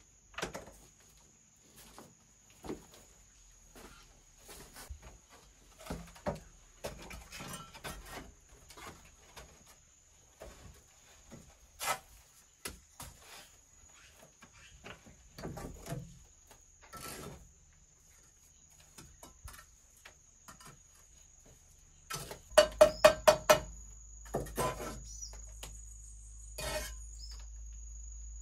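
Bricklaying with a steel trowel on hollow clay bricks: scattered scrapes, knocks and clicks as mortar is spread and bricks are set. A bit before the end comes a quick run of about six sharp, ringing taps, the trowel knocking a brick down into its mortar bed.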